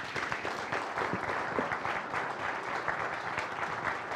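Audience applauding steadily at the end of a talk.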